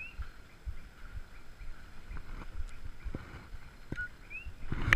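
Common coquí frog giving its two-note "co-kí" call twice, a short steady note followed by a short rising one. Scattered light knocks sound underneath, with a louder knock near the end.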